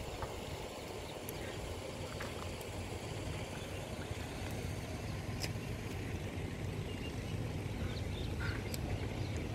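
Steady low outdoor rumble, with faint short bird chirps and a few clicks now and then.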